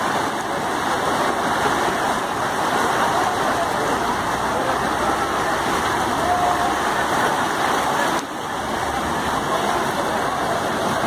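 Floodwater from a burst water main rushing fast along a paved street: a steady, continuous rush of water, briefly a little quieter about eight seconds in.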